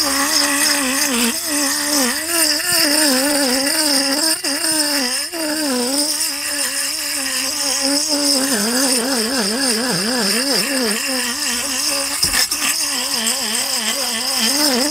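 Handheld electric fish scaler running against a fish's skin: a motor whine whose pitch keeps wavering up and down as it is pressed and dragged along, over a steady rattling hiss of scales being stripped off. It stops abruptly at the end.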